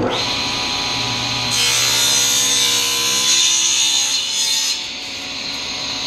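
Table saw running, coming on abruptly with a steady motor hum. About a second and a half in, the blade rips a board lengthwise to 3/4 inch, a louder, brighter hiss for about three seconds. Then the blade spins free again.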